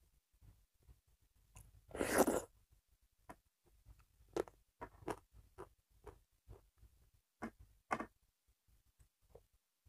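Close-miked chewing of a hand-eaten mouthful of rice and dal, with scattered wet mouth clicks and smacks. There is a brief louder rustle about two seconds in.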